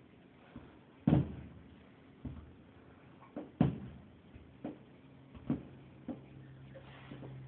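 Fireworks bursting, heard from indoors as a series of separate dull thumps, the loudest about a second in and again about three and a half seconds in. A low steady hum comes in during the second half.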